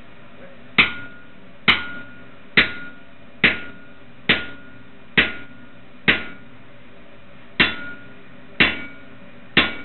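Hammer blows on a handled hot punch driving a hole through a red-hot 25 mm square steel bar on an anvil. Ten strikes come about a second apart, with a short pause before the eighth, and each gives a sharp metallic clank that rings briefly.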